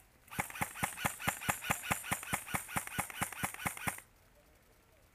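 Airsoft rifle firing a rapid, evenly spaced string of about eighteen shots, roughly five a second, lasting about three and a half seconds and stopping abruptly.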